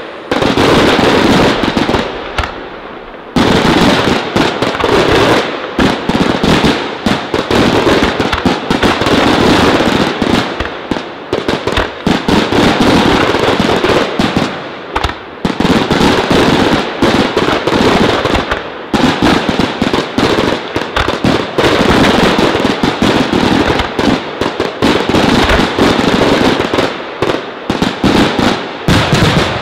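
Fireworks display: a dense, almost unbroken barrage of shell bursts and crackling bangs, dipping briefly about two seconds in before going on.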